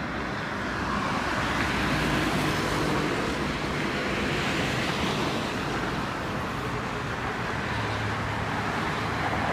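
Road traffic on a busy street: cars running and passing in a steady wash of engine and tyre noise that swells a little as vehicles go by.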